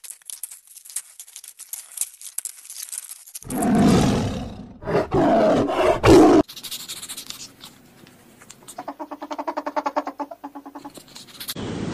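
A run of short animal clips: faint clicking and rustling, then loud, deep calls from a large animal lasting about three seconds, then a fainter rapid pulsing rattle that cuts off shortly before the end.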